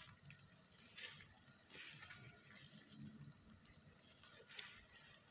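Black plastic courier mailer bag crinkling and rustling in intermittent soft crackles as it is handled and turned over.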